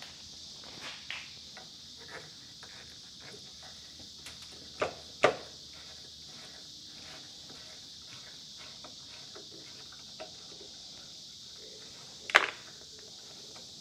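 Steady high chirring of crickets, with scattered light clicks and three sharp metallic knocks, two about five seconds in and one near the end, as hand tools work bolts loose.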